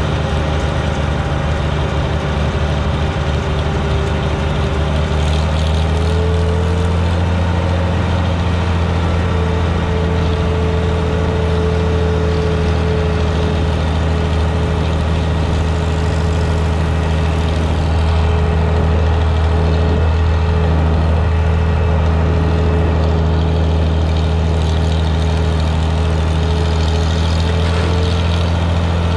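Vintage tractor engine running steadily while driving at road speed, heard close to its exhaust stack. The engine speed picks up slightly about six seconds in.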